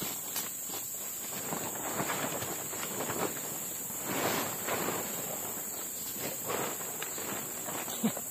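Soft, irregular footsteps and rustling on the forest floor, over a steady high-pitched drone of insects.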